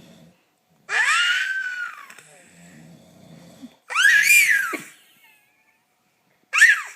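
A baby gives three loud high-pitched squeals, each rising and falling in pitch; the last one is short. Between them comes a man's quieter, low snoring.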